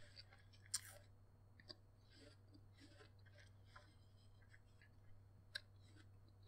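Near silence: a few faint, sharp clicks and taps as hands handle a cut apple and an apple wedge over a plate, the sharpest about a second in and another near the end, over a low steady hum.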